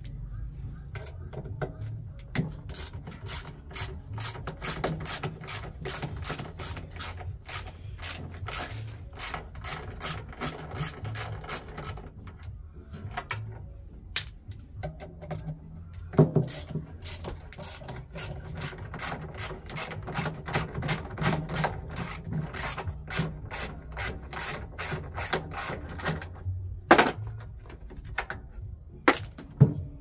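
Ratchet tool clicking in long, quick runs as screws are undone from a washing machine's tub front, with a pause partway and two louder knocks near the end.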